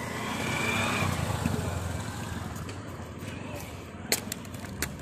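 A motor vehicle passing, its rumble swelling to a peak about a second in and fading away over the next second or so. Two sharp clicks near the end.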